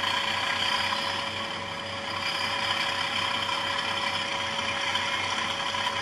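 Bachmann Class 37 model locomotive's DCC sound decoder playing the diesel engine running, a steady, rattly, rhythmic beat from a small onboard speaker, over a constant hum.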